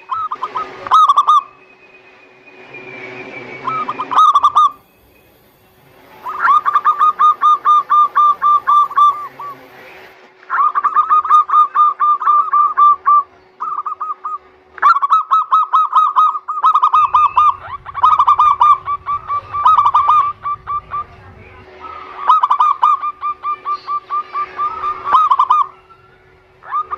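Zebra doves (perkutut) calling in fast runs of rolling, rapidly repeated coos, several runs lasting a few seconds each with short pauses between, used as a lure call to prompt caged perkutut to sing.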